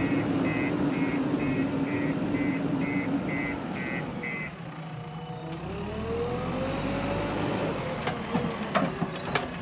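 JCB 4DX backhoe loader's diesel engine running, with its reversing alarm beeping about twice a second until about halfway through. The engine then revs up, rising in pitch, as the loaded front bucket is raised, and a few sharp knocks come near the end.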